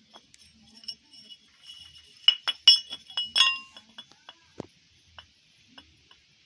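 A series of sharp metallic clinks and knocks, bunched between about two and three and a half seconds in, the strongest ones ringing briefly, with a few scattered single clicks after.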